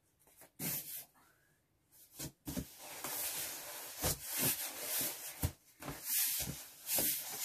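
Cardboard flaps of a packed balikbayan box scraping and rubbing under hands and knees, with a few dull thumps, as a person kneels on it to press the contents down so the box will close.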